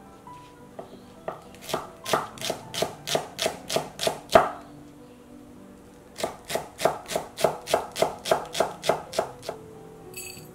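Chef's knife slicing green onion thinly on a wooden cutting board, quick chops striking the board about four times a second in two runs with a short pause between.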